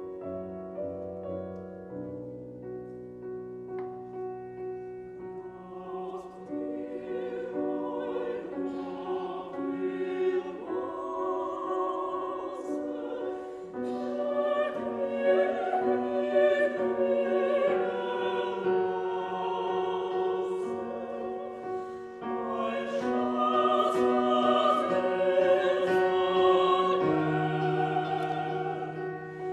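Held keyboard chords, then a small classical vocal ensemble comes in about six seconds in, singing with vibrato over the accompaniment. The singing swells louder twice.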